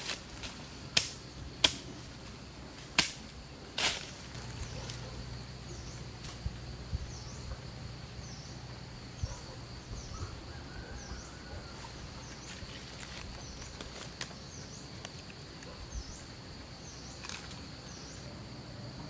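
Four sharp chops of a short knife blade striking into the forest ground, in the first four seconds and the last of them the loudest. After that a steady high whine with a short chirp repeated about once a second carries on in the background.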